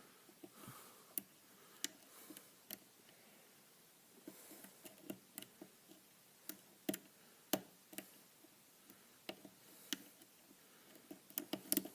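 Faint, irregular clicks of a lock pick working the pins of a pin-tumbler challenge lock under light tension, the pins setting and dropping, with a quick cluster of clicks near the end.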